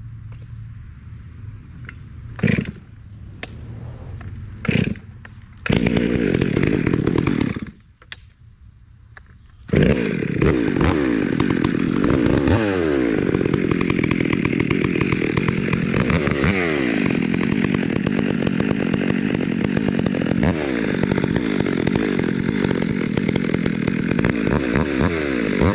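Gas chainsaw catching briefly twice, running for about two seconds and stopping, then running steadily from about ten seconds in, with its engine speed dipping and recovering several times.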